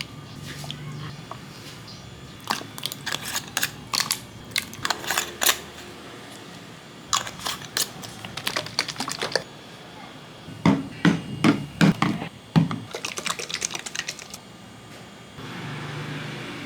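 Quick clicking and tapping in four bursts, with a few heavier knocks about eleven to twelve seconds in.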